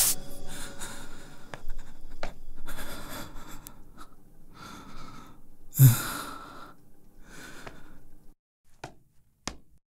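Small objects scraped, rustled and knocked as they are handled and picked up off a floor, in a string of short bursts, with a heavier knock about six seconds in. After about eight seconds it drops to near silence apart from a couple of faint clicks.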